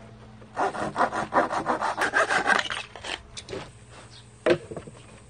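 Quick back-and-forth scraping strokes of wood on thin plywood, about six a second for about two seconds, followed by a few light knocks of small plywood pieces being handled.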